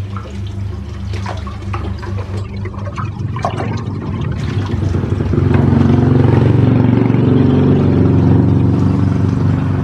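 Aquarium water splashing and sloshing as hands grab a large catfish in the tank, over the steady hum of the aquarium filter pump. About halfway in, a louder engine starts running close by and keeps going.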